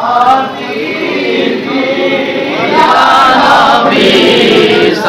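A crowd of men chanting a devotional chant together in unison, getting louder about three seconds in.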